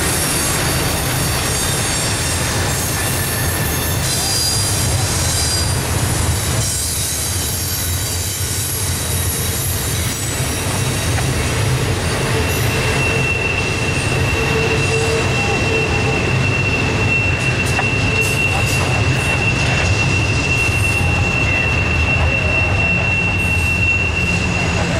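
Loaded double-stack intermodal well cars rolling past on a curve: a steady rumble of steel wheels on the rails, with wheel squeal against the rail. Short squeals come early, and from about halfway on a single high, steady squeal holds.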